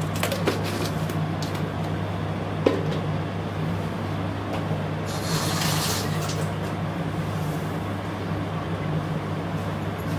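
Steady low hum, with a few light clicks near the start and a short hiss about five seconds in.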